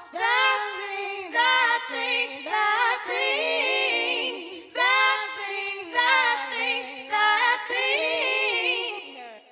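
Background music: several voices singing a cappella, with a steady high ticking beat.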